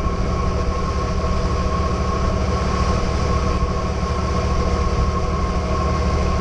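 Boat engine running steadily: a constant low drone with a steady high whine over it.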